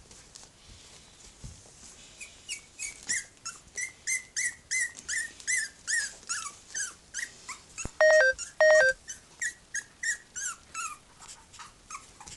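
Three-week-old Cavalier King Charles Spaniel puppies yipping and squeaking at play, a quick run of short, high, falling squeaks, about three a second, from about two seconds in until near the end. About eight seconds in, a loud steady two-note tone, dropping in pitch, sounds twice in quick succession; it is the loudest sound.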